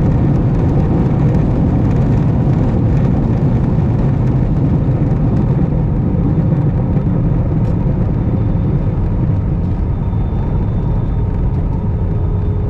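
Airbus A320 cabin noise after touchdown: a loud, steady low rumble of the engines and the aircraft rolling on the ground. It eases slightly near the end.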